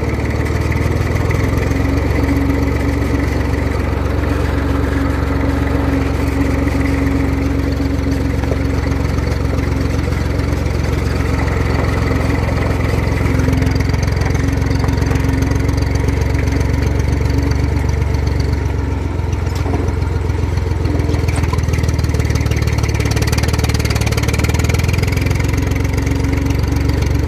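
Small tractor engine running steadily while driving, pulling a trailer loaded with sand.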